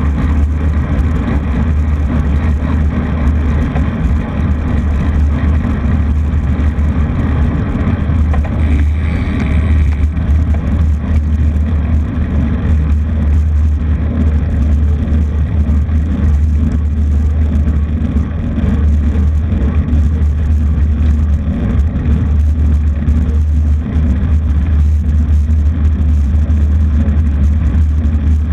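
Steady, loud low rumble of wind buffeting the microphone while riding along a road at speed, with vehicle and road noise underneath.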